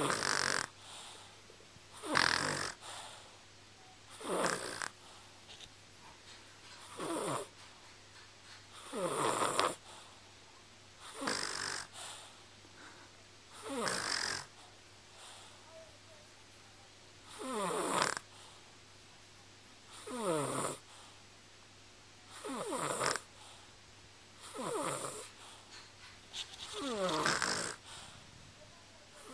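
Slow, regular snoring: about a dozen loud snores, one every two to two and a half seconds, each sliding down in pitch, with one longer pause midway.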